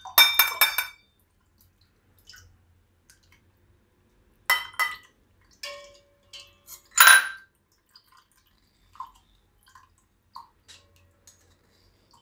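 Stainless steel ladle clinking and scraping against a steel bowl and a mesh tea strainer, with small drips as juice runs through the strainer into a glass. The clinks ring briefly: a few just after the start, two about four and a half seconds in, and the loudest clank about seven seconds in.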